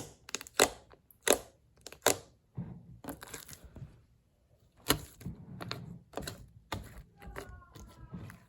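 Slime being squeezed and worked by hand, giving a string of sharp clicks and pops with softer crackling in between, irregularly spaced, and a brief faint squeak near the end.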